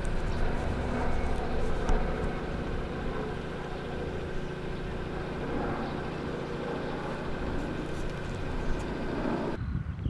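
A steady mechanical hum, like a motor or engine running, over outdoor background noise. It cuts off suddenly near the end.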